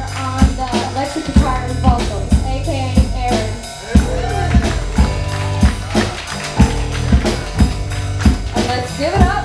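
A youth rock band playing live: a drum kit keeps a steady beat of about two hits a second under electric bass, electric guitar and a singing voice.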